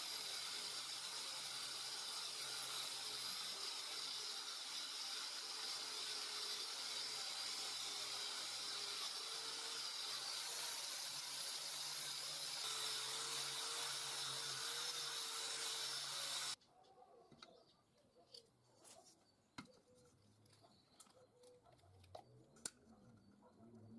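Angle grinder fitted with a wire brush running steadily as it scrubs rust off a steel square tube, cutting off suddenly about two-thirds of the way through. A few light clicks and taps follow.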